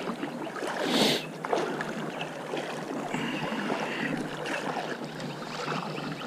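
River water sloshing and splashing around legs wading through a shallow river, with a louder splash about a second in.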